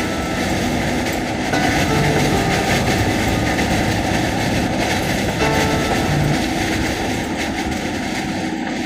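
Steady, loud vehicle noise heard inside a truck cab, with a few short faint tones through it.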